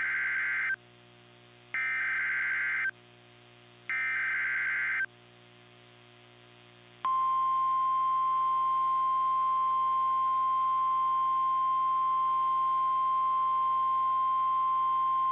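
Emergency Alert System header: three short bursts of screechy digital data tones about a second apart, then a single steady, unbroken attention tone starting about seven seconds in. Together they signal the start of an emergency alert.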